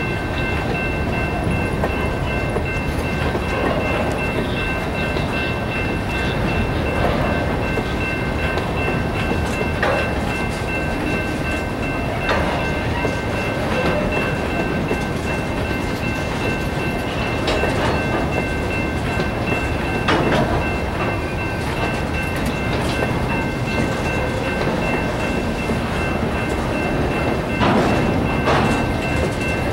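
Freight gondolas rolling through a grade crossing: a steady wheel rumble with clacking over the rail joints and a few sharper clanks. Over it the crossing's General Signals Type-2 electronic bell rings without a break.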